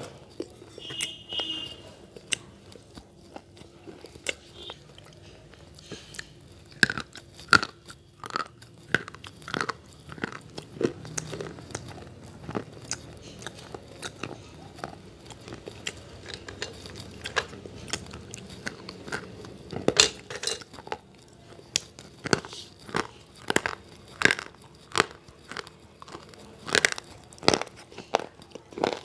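Slate pencils being bitten and chewed close to an earphone's inline microphone: a long run of sharp, irregular crunches coming in quick clusters.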